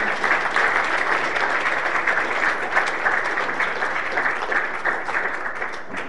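Audience applauding in a lecture hall, a dense patter of many hands clapping that dies away near the end.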